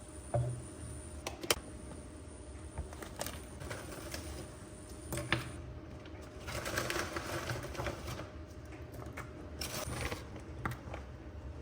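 Everyday handling sounds: a few sharp clicks and knocks, and a couple of seconds of rustling or scraping about halfway through, over a faint steady hum.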